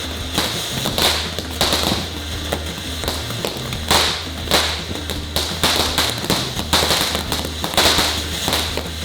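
A consumer multi-shot firework cake firing off a rapid series of pops and bangs, roughly one or two shots a second.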